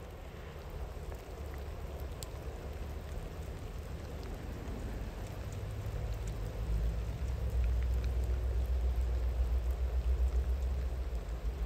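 Steady rain pattering, with a few single drops standing out, over the low rumble of a distant train. The rumble swells about halfway through.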